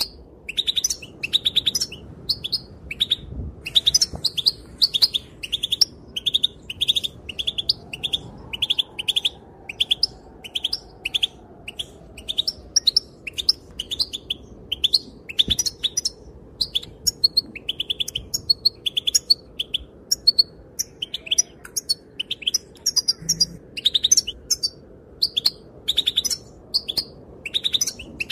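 Female European goldfinch calling: a continuous, rapid twitter of short high chirps, several a second, with brief pauses.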